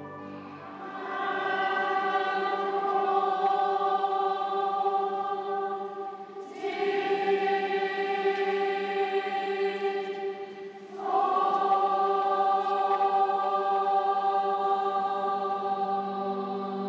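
Children's choir singing long held chords in three sustained phrases. A new phrase starts about a second in, again about six and a half seconds in, and again about eleven seconds in.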